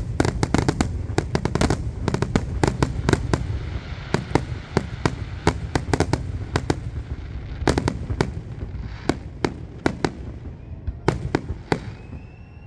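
Aerial fireworks shells bursting in a rapid barrage, many sharp bangs a second over a continuous low rumble, thinning to a few scattered bangs over the last few seconds.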